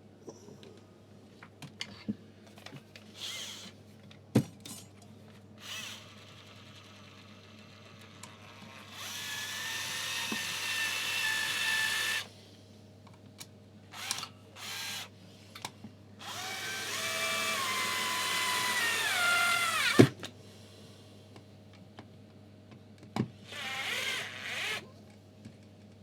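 Electric screwdriver driving screws into a hairdryer's plastic housing: several short runs and two longer ones, the motor's whine dropping in pitch as a screw tightens, with small clicks between runs and one sharp click about twenty seconds in.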